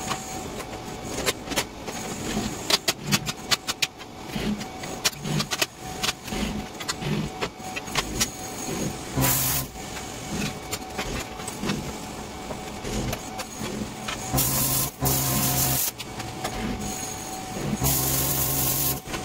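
Plasma cutter cutting metal plate: a loud hiss of the arc and air starting and stopping several times, briefly a little before halfway, for about a second and a half later on, and again near the end. Before and between the cuts come clatter and clicks of the torch and plate being handled.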